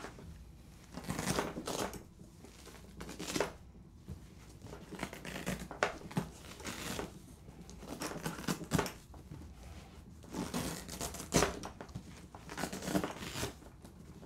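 Irregular rustling, scraping and soft knocks as an alto saxophone is fitted into a padded leather case, its foam pads pressed and pulled into place around the horn.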